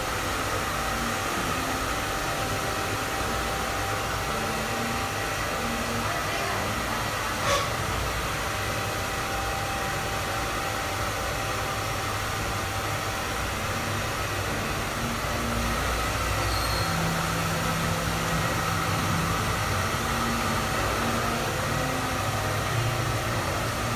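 Electric hair clipper running steadily while it is worked up the back of the neck and head, with one sharp click about seven and a half seconds in.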